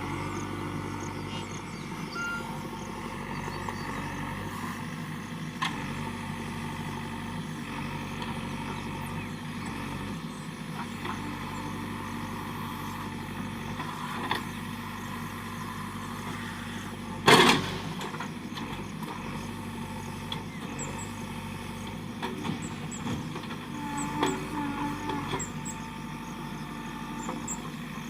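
JCB backhoe loader's diesel engine running steadily while working, with a few light knocks and one loud bang about seventeen seconds in.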